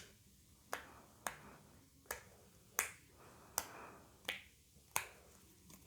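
Silicone bubbles of a rainbow pop-it fidget toy being pressed one at a time, about eight sharp pops, roughly one every three-quarters of a second.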